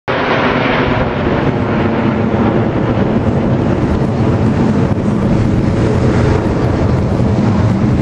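Jet engine noise from a formation of U.S. Air Force Thunderbirds F-16 fighters flying overhead, a loud, steady rumble.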